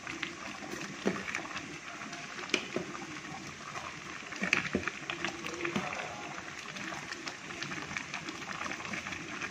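A metal spoon stirring thick rice porridge in a stainless steel pot, clinking sharply against the pot several times, over a steady hiss.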